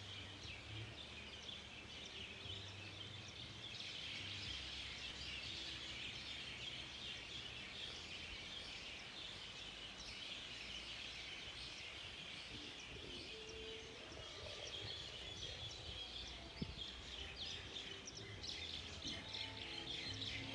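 Many birds chirping and chattering at once in a dense, continuous chorus, with a low steady hum underneath.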